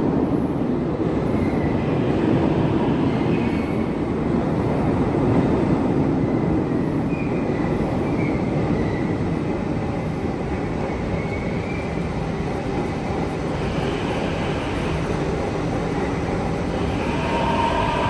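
Train or metro car in motion: a steady rumble of wheels on track. Near the end a whine sets in and starts to fall in pitch.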